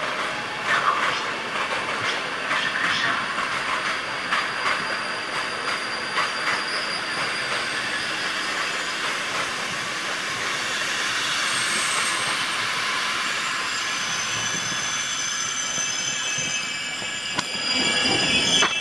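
PKP Intercity passenger coaches rolling past, their wheels making a steady rumble on the track. A few sharp clicks come over rail joints in the first seconds. Thin, high wheel squeals grow louder near the end.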